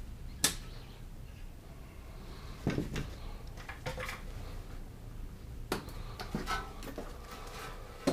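A few sharp, irregular clicks and light metallic knocks from hand work on the car's brake assembly, over a faint low hum.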